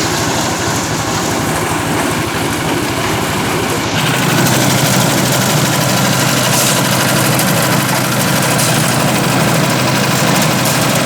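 Concrete mixer machine's engine running steadily. About four seconds in, the sound abruptly steps up louder with a stronger low hum.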